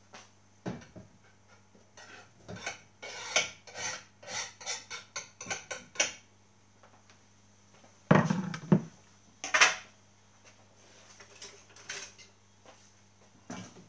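Kitchen clatter of a metal saucepan and cooking utensils clinking and knocking, with a run of quick taps a few seconds in and a few louder knocks later on, as food is moved from a wooden chopping board into the pan.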